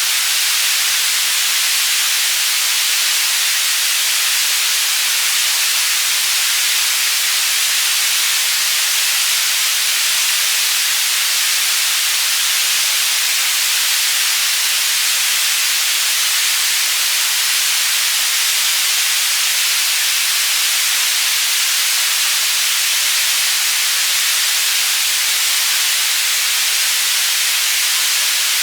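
Synthetic white noise for tinnitus masking, panned between left and right: a steady, even hiss, strongest and brightest in the high range, with no change in overall loudness.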